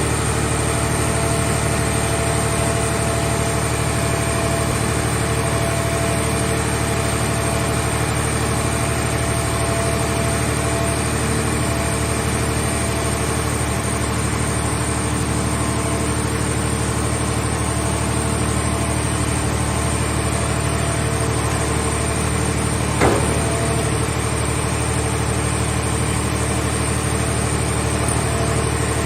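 Mobile hydraulic scrap car baler's power unit running steadily at a constant pitch. One sharp knock comes about 23 seconds in.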